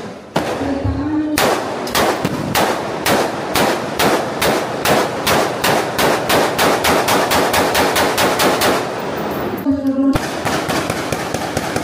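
A long, rapid run of sharp celebratory bangs, about four or five a second and quickening slightly, starting a little over a second in and stopping around the ninth second. After a short lull, a single sharp crack is followed by a fainter, denser spatter of cracks.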